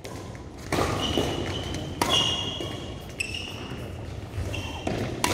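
A badminton rally: sharp racket hits on the shuttlecock, about three of them, with short high-pitched shoe squeaks on the court floor between them.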